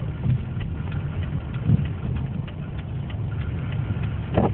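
Road noise inside a moving car's cabin: a steady low rumble of engine and tyres, with many small scattered ticks and a brief low bump about two seconds in.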